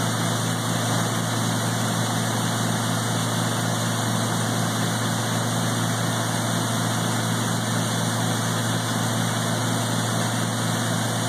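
Tractor engine driving a grinder-mixer through the PTO, running steadily while it grinds feed: a constant low drone with a dense, even rush of noise over it.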